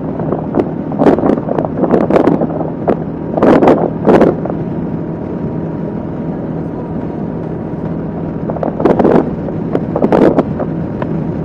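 Kawasaki KLR 650's single-cylinder engine droning steadily at highway cruising speed, with wind buffeting the microphone in loud rushing gusts about a second in, again around three to four seconds, and once more around nine to ten seconds.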